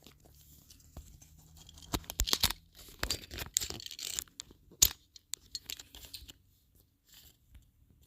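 Close handling noise of a phone being fitted back onto a tripod mount that keeps coming loose: irregular sharp clicks and scraping rustles, busiest in the middle with one loud click about five seconds in, then dying down.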